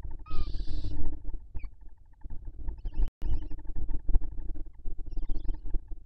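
A barn owl gives one short breathy hiss near the start, with a couple of fainter hissy bursts later. Under it, constant low scraping, rustling and knocking from the owls shuffling on the nest material close to the microphone.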